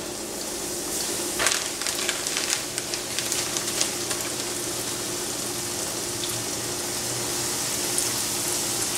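Battered tilapia fillets frying in a little hot oil in a pan: a steady sizzle with scattered crackles as more pieces are laid into the oil, over a faint steady low hum.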